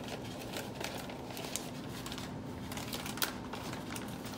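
Clear plastic soft-bait bag crinkling and rustling as it is handled, in irregular crackles, with one sharper click about three seconds in.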